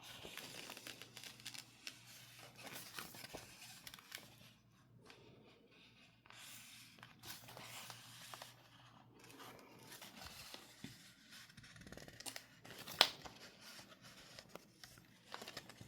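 Faint, irregular crinkling and rustling of sticker sheets and their plastic packaging being handled, with one sharper click about three-quarters of the way through.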